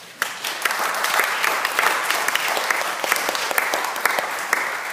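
Small audience applauding, a dense patter of hand claps that starts suddenly just after the beginning and keeps up steadily.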